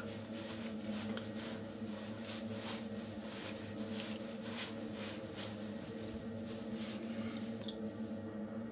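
Towel rubbing and patting a freshly shaved face and neck dry: a run of soft brushing strokes that stop near the end, over a steady low hum.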